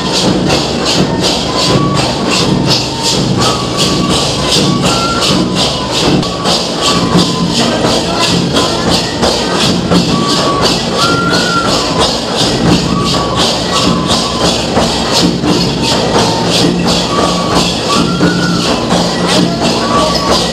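Kolami tribal dance music: a fast, even beat of dafali frame drums with a jingling sound, about four strokes a second, under a short melody line that repeats.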